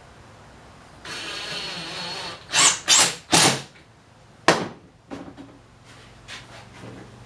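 Power drill driving a screw into wood for about a second and a half, followed by three short loud bursts and a sharp knock.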